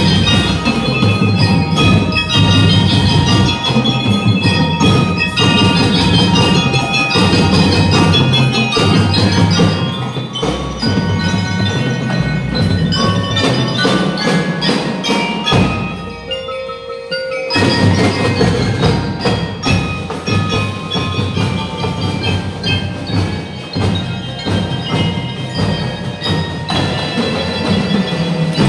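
Drum and lyre band playing: bell lyres ring out the melody over a driving drumline. The band drops out briefly about sixteen seconds in, comes back in, and stops near the end.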